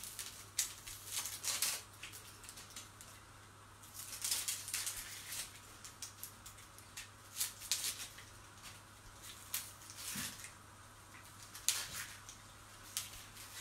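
Dry onion skin crackling and rustling as a whole onion is peeled by gloved hands with a small knife, in scattered bursts of small crackles with short pauses between them.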